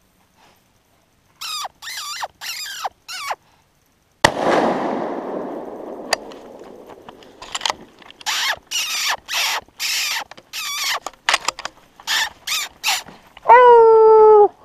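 Four short high squeals from a predator squeak call, then a single .300 Win Mag rifle shot about four seconds in, with a long echoing tail. A run of short high squeals follows, and a louder, held call near the end.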